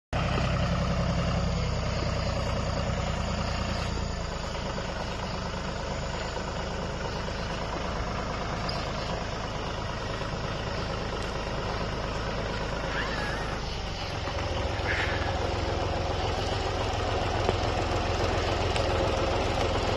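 John Deere tractor engine running as the tractor is driven slowly. The engine note drops about four seconds in and picks up again about fourteen seconds in.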